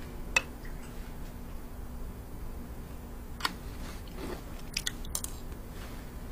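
A person eating with a spoon from dishes on a tray: a few sharp clicks of the spoon against a dish, one about half a second in, one about three and a half seconds in and a quick cluster near the end, with chewing between, over a faint steady hum.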